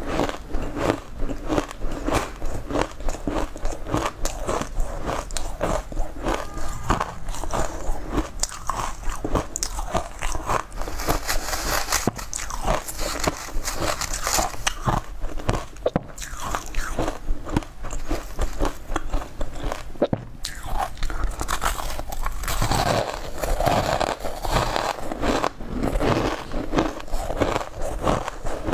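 Close-miked crunching and chewing of a mouthful of shaved ice, a quick continuous run of crisp crunches as the ice is bitten and ground between the teeth.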